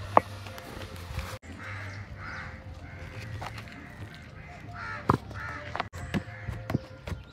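Harsh animal calls now and then, with a sharp knock just after the start and several more knocks in the second half.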